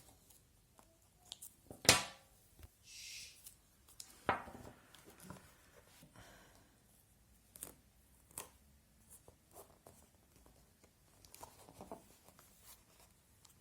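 Insulating tape being pulled off the roll and torn while it is wrapped round a repaired laptop charger cable, with a sharp rasp about two seconds in and another around four seconds, among scattered small clicks and rustles of handling.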